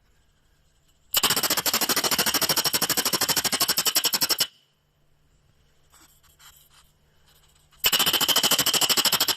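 Japanese weasel chattering: a burst of about three seconds of rapid, harsh, evenly repeated calls, then a second burst starting near the end. The uploader suspects this is a warning call.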